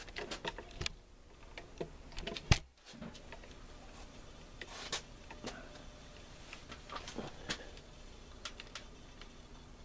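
Handling noise from a camera being picked up and turned: scattered light clicks and taps, with one sharp knock about two and a half seconds in.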